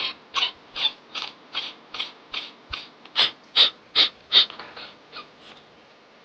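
Single-nostril kapalbhati breathing: a quick series of sharp, forceful exhalations through one nostril, about two and a half puffs a second, a dozen or so, tailing off after about four and a half seconds. It follows jala neti, where it serves to blow leftover water out of the nose.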